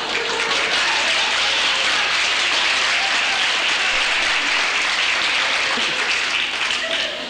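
Audience applauding in a lecture hall, dying away near the end.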